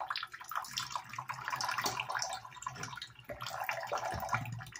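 A thin stream of water from a bathroom faucet running into the sink basin, splashing around the drain.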